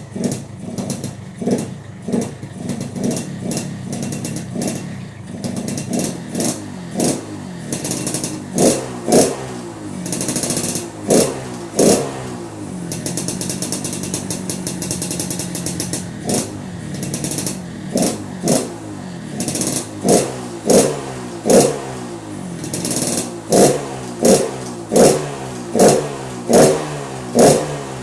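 Motorcycle engine revved in repeated quick throttle blips, each surge dropping back toward idle, giving the rough, snoring-like 'ngorok' note being tested. A steadier held stretch comes about halfway through; near the end the blips come faster and evenly, a little over one a second.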